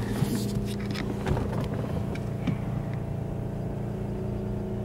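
Steady low machine hum heard from inside a car's cabin, with a few faint clicks in the first couple of seconds.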